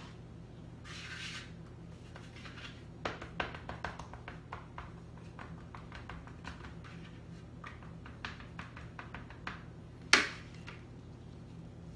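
Light scattered taps and clicks of hands working a ball of pizza dough on a plastic cutting board and plate, with one sharp knock about ten seconds in. A brief soft hiss about a second in, and a low steady hum underneath.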